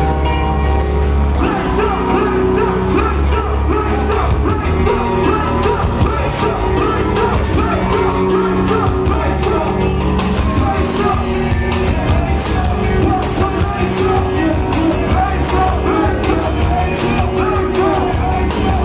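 Loud live concert music with heavy bass and a singing vocal line.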